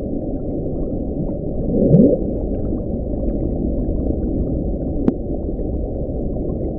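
NOAA hydrophone recording of the Bloop, sped up about sixteen times: a steady low rumbling hiss with one rising sweep about two seconds in, the loudest moment, and a brief click near the end. The sound is the signature of an icequake, a massive iceberg cracking apart.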